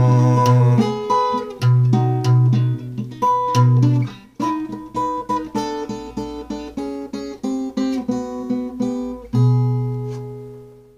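Blues guitar playing the song's closing instrumental bars: picked notes over a repeated bass note, then a run of single notes, ending on a last chord about nine seconds in that rings out and fades away.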